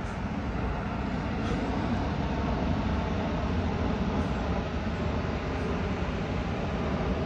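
Jet airliner passing overhead: a steady rumble.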